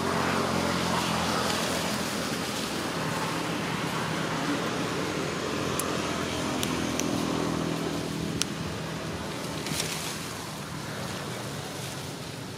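A motor vehicle's engine running steadily, fading in the last few seconds, with a few faint sharp clicks in the middle.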